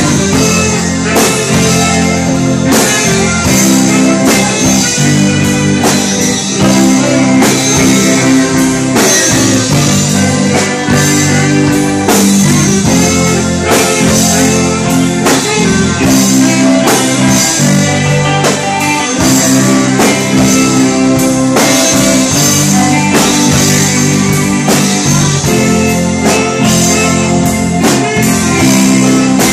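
Live pop-rock band playing an instrumental passage: electric guitars, saxophone, bass and drum kit over a steady beat.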